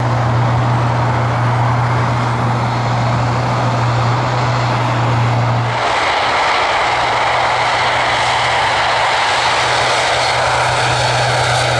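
Airbus A400M's four Europrop TP400 turboprops with eight-bladed propellers running on the ground during the takeoff run: a loud, steady low propeller drone with an engine rush over it. About six seconds in the sound changes abruptly, the low drone dropping back and the higher rush growing.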